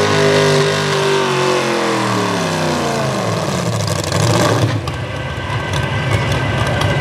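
V8 engine of a Hot Rod class pulling tractor built on a Farmall M, winding down at the end of a pull: its pitch falls steadily for about four seconds, then it settles to idle.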